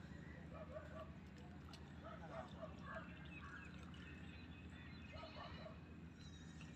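Faint outdoor ambience: birds calling now and then, with short harsh calls and thin high chirps, over a low steady rumble.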